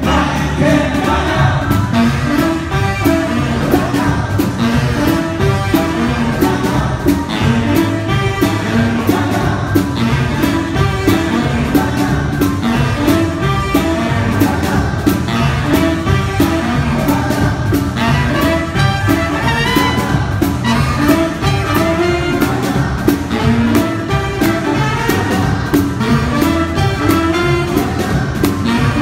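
Live swing band playing: saxophone section over drums and double bass, with a steady beat.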